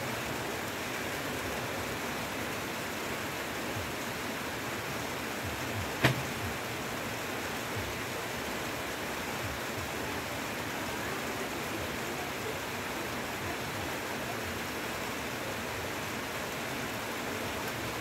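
Heavy rain falling steadily on forest foliage, an even hiss, with one sharp tap about six seconds in.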